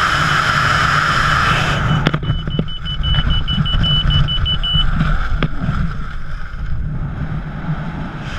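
Loud freefall wind roaring over a wingsuit skydiver's helmet-camera microphone drops off abruptly about two seconds in as the parachute opens, with a few sharp snaps. A lower rumble of wind buffeting follows under the canopy. A high, steady electronic beeping tone sounds for a few seconds just after the opening.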